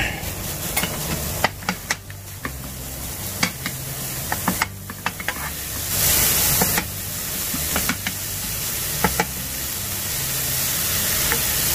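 Ground meat sizzling in hot oil in a non-stick frying pan while it is broken up and stirred with a metal ladle, the ladle clicking and scraping against the pan now and then. The sizzle grows louder about halfway through.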